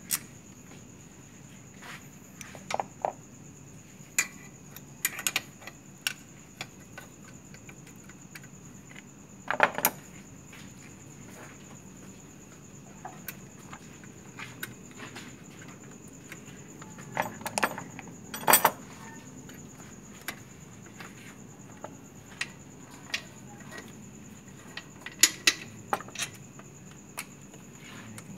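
Metal hand tools and parts clinking and clicking at irregular intervals as they are handled, with a few louder clanks, over a faint steady high-pitched tone.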